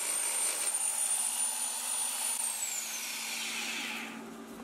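Small rotary sanding tool with an abrasive disc running at a high whine while dressing down weld spots on car-body sheet steel. It is switched off a little over two seconds in, and its pitch falls as it spins down.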